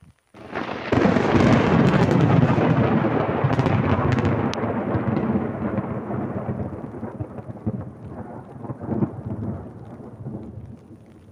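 Loud thunder from a lightning strike: a sudden crack about half a second in, then a long rumble that slowly dies away, swelling once more about three-quarters of the way through.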